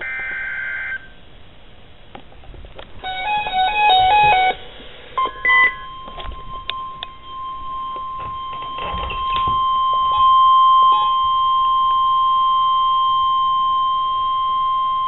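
End of an EAS/SAME digital header: a one-second burst of warbling data tones. Then a short run of stepped electronic beeps, and the NOAA Weather Radio 1050 Hz warning alarm: one steady tone for about ten seconds that gets louder about halfway through and cuts off sharply.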